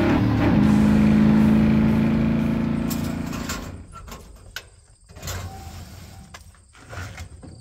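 A loud held tone fades out over the first four seconds; then corrugated sheet-metal shed doors are pulled open by hand, with several sharp clanks and rattles.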